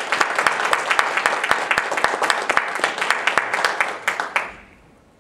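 A room of people applauding, the clapping dying away about four and a half seconds in.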